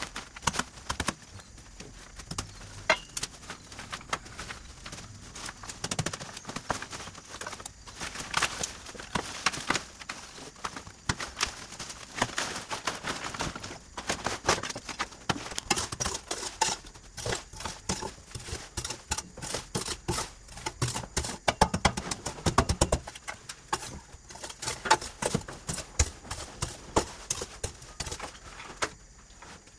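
A busy, irregular run of sharp knocks and clicks, as of hard objects being handled and struck, with a brief low drone just past the middle.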